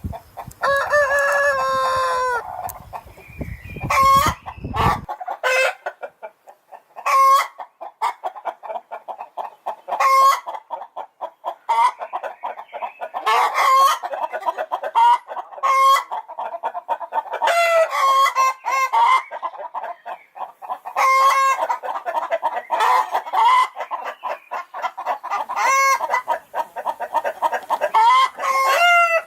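Chickens clucking and cackling: loud calls every second or two over a dense run of rapid clucks, with one long drawn-out call near the start.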